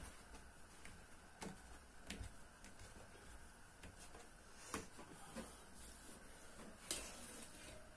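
Faint scattered ticks and pops over a low steady hiss, from a pot of broth simmering with pieces of khinkal dough on a lit gas burner.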